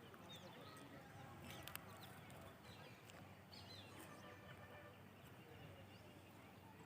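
Faint, distant bird calls, a few short chirps over near silence.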